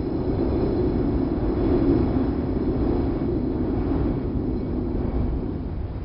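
Wind sound effect: a steady, low rushing of wind with no distinct tones, swelling a little about two seconds in and easing toward the end.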